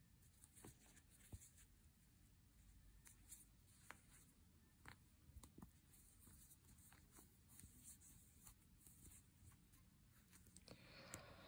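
Near silence: faint, soft ticks and rustles of a crochet hook working yarn, with a slightly louder rustle near the end.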